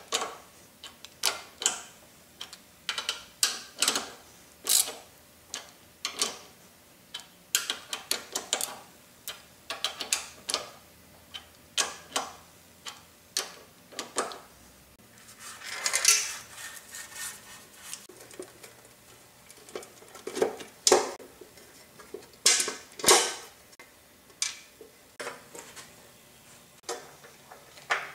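Socket ratchet clicking in short runs as the bolts on the motor's end bell are tightened, with a few louder knocks in the second half.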